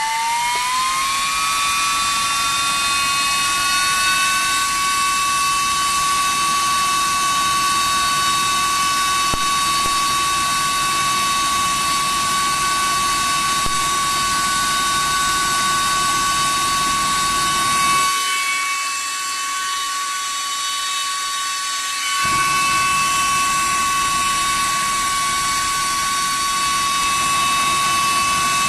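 Small electric blower fan blowing air onto charcoal briquettes to fan them up. It runs as a steady high whine over a rush of air, rising in pitch as it winds up to speed in the first second or so. The rush of air drops away for about four seconds past the middle while the whine carries on.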